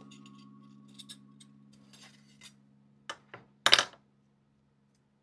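Light metallic clicks and clinks of copper jewelry wire and pliers being handled, with two sharp clicks about three seconds in and a louder clink just after. Faint held background music tones sit underneath.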